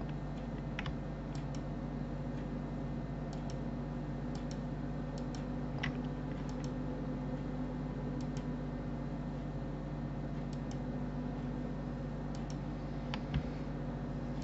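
Computer mouse clicks, scattered and often in quick pairs, over a steady low hum.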